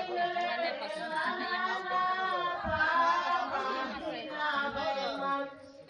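Several women singing together, their voices overlapping in long held notes, mixed with some chatter. The singing drops away just before the end.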